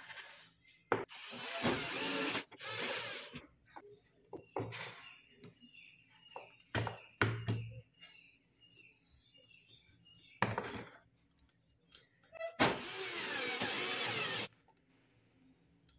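Cordless drill driving screws into a wooden frame, in runs of one to two seconds: two short runs near the start and a longer one near the end. Clicks and knocks of parts and screws being handled come between the runs.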